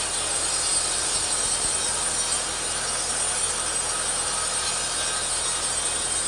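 Petrol chainsaw ripping teak lengthwise, running steadily under load through the cut.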